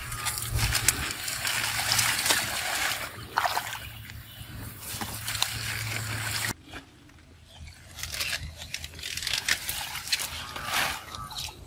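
Hands sloshing and splashing in shallow water among dense water hyacinth, with the stems and leaves rustling and crackling as they are pushed aside. The sound drops away abruptly about two-thirds of the way in and picks up again a second or two later.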